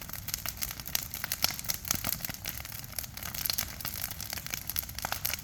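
Burning brush pile crackling and popping, with irregular sharp snaps over a steady low rumble.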